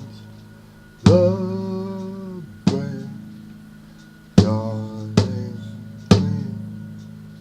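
Instrumental music with no singing: sharp drum-like hits every one to two seconds, each ringing on as a pitched note that dips in pitch at the start and then fades, over a steady low held tone.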